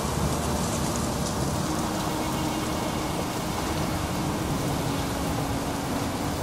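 Torrential downpour: a steady, even rush of heavy rain driven by strong wind.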